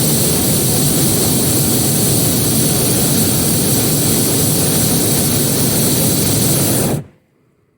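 Hot-air balloon's propane burner firing in one long blast: a loud, steady rushing noise that starts suddenly and cuts off about seven seconds in.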